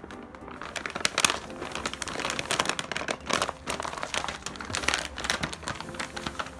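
A brown paper shopping bag crinkling and rustling in irregular crackles as a kitten wriggles and paws around inside it.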